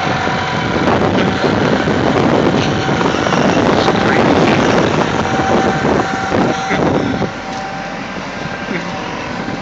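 Excavator's diesel engine running under load as the hydraulics move the boom and arm, with a steady whine over it; the load eases about seven seconds in.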